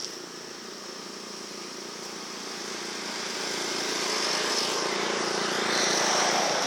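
A motor vehicle's engine and road noise growing steadily louder as it approaches, over a steady high chirring of insects.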